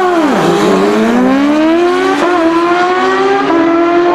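A turbocharged Suzuki Hayabusa and a Kawasaki Ninja H2 running loud at full throttle off a drag-strip launch. The revs dip as the bikes leave the line, then climb steadily, with quick drops at gear changes about two and three and a half seconds in.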